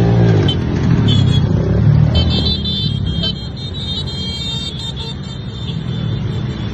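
A convoy of motorcycles riding past, their engines running in a steady low rumble that is loudest in the first two seconds or so. From about two seconds in to about five seconds in, a high-pitched tone sounds over the engines.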